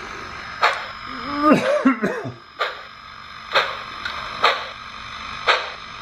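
Sound decoder of an Sn3-scale K27 #461 model steam locomotive playing slow exhaust chuffs, about one a second, over a steady hiss through its small onboard speaker, as the model runs slowly.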